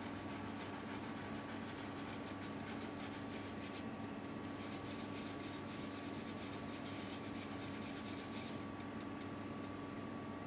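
Wire whisk stirring flour in a fine-mesh stainless steel sieve: a rapid scratchy rasping of wire against mesh as the flour is pushed through, easing off near the end. A steady low hum runs underneath.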